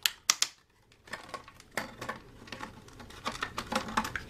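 Clear plastic blister packaging clicking and crackling as a hard plastic phone case is pried out of it. Two sharp clicks open it, a brief pause follows, then a quick run of clicks and rustles.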